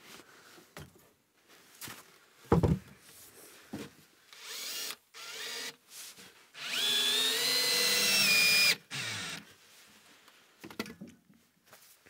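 Cordless drill driving screws into a wooden board: two short bursts of motor whine about four and five seconds in, then a longer run of about two seconds whose whine rises as it spins up. A single sharp thump comes before them, about two and a half seconds in.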